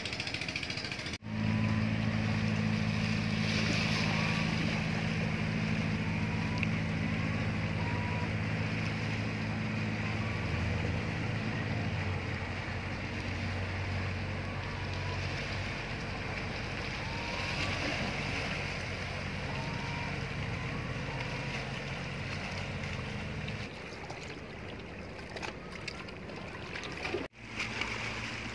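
A boat engine running with a steady low drone over a hiss of water noise. The drone drops away about 23 seconds in.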